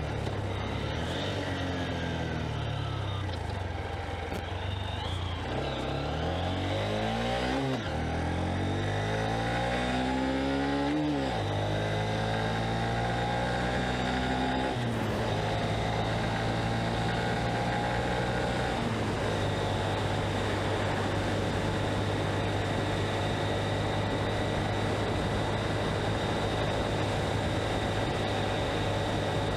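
Honda CB125F's single-cylinder four-stroke engine under way, its revs climbing and dropping back about three times as it goes up through the gears, then holding a steady cruise for the second half.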